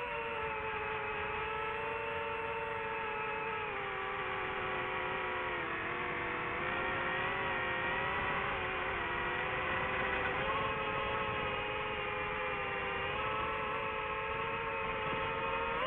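DJI FPV drone's motors and propellers whining steadily; the pitch sinks gradually toward the middle and climbs again near the end as the throttle changes.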